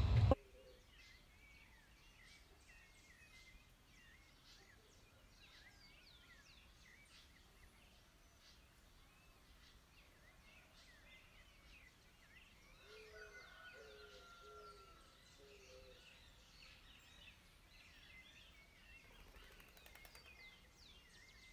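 Birds chirping and twittering: many short, high chirps throughout, and about thirteen seconds in a run of four lower calls from another bird, with one brief held whistle.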